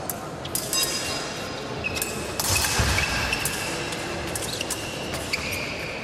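Fencers' footwork on the piste: feet stamping and sliding, with several sharp clicks and a few thuds, in a large hall.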